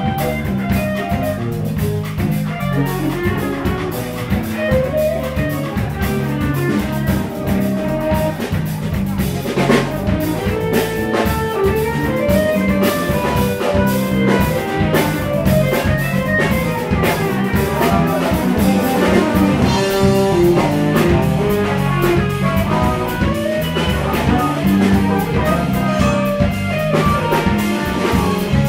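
Live jazz fusion band playing: electric guitar, electric bass, drum kit and keyboards, with quick melodic lines over a busy drum beat.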